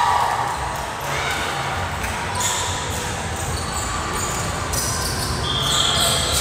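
Echoing large-gym sound of an indoor volleyball rally on a hardwood court: scattered players' and spectators' voices and court noise. Near the end a short, high, steady tone sounds for under a second.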